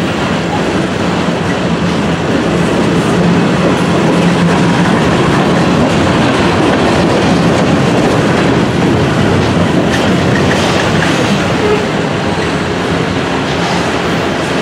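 Freight train cars (tank cars, covered hoppers and boxcars) rolling past close by: a steady clatter of steel wheels on the rails, with a couple of sharper clanks in the second half.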